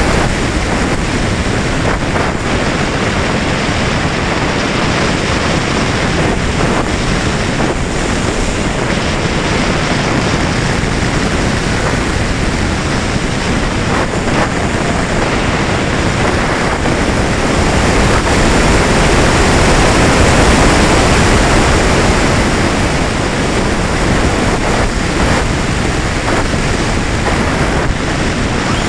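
Steady rush of airflow over a camera mounted on a gliding electric R/C sailplane, with the motor off and its folding propeller folded. The wind noise swells a little about two-thirds of the way through.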